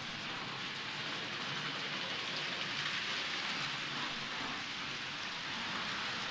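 Model trains running on a layout: a steady, even rattling hiss of many small wheels rolling over the metal track, with the faint hum of the locomotives' motors.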